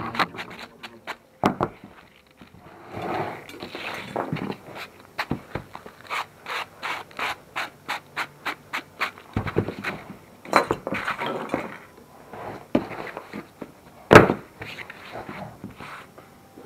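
Dirt bike seat foam being hand-sanded with a small abrasive pad: quick scratchy back-and-forth strokes, about three a second through the middle, with a sharp knock late on.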